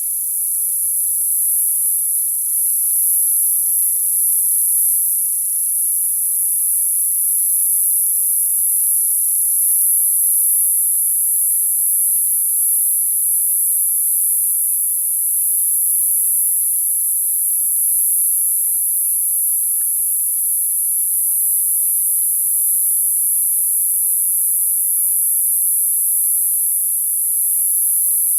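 Summer cicadas singing: a loud, high-pitched buzz that holds steady without a break.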